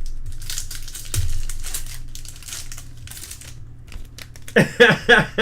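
Crinkling and rustling of a foil card-pack wrapper being handled and opened, with quick crackly ticks. Near the end a man chuckles in a rapid run.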